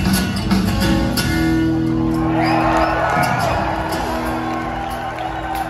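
Live band music from a trio: guitar over upright bass and drums, with long held bass notes.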